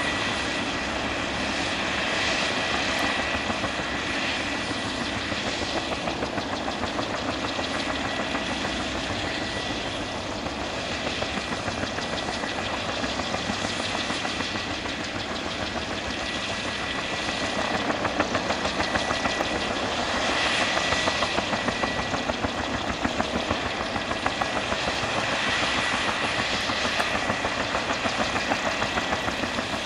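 Fuji-Bell 204B-2 helicopter's Lycoming T53 turboshaft running after engine start, a steady high whine, with its two-bladed main rotor turning at low speed. The rotor gives a regular beat that grows more marked in the second half.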